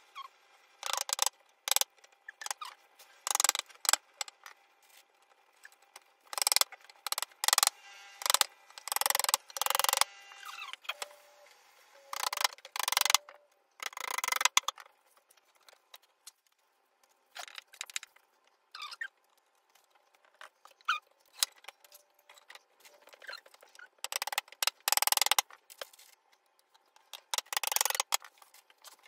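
Flat-pack bedside table being assembled, played back sped up: a rapid, irregular run of knocks, clicks and clatters as wooden panels, screws and tools are handled. The sound is thin, with no low end.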